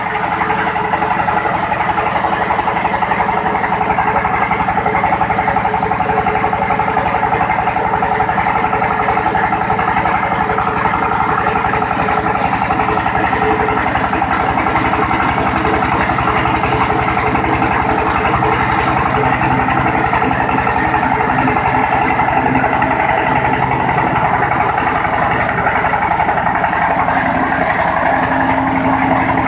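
PL500 pellet mill running steadily, its drive giving a continuous even mechanical drone with a fast pulsing beat.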